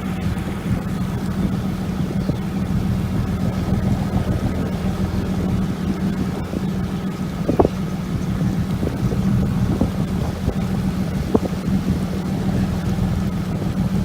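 A boat's engine running at a steady, even hum, with wind buffeting the microphone. Two short knocks come through, about halfway and again near three-quarters of the way in.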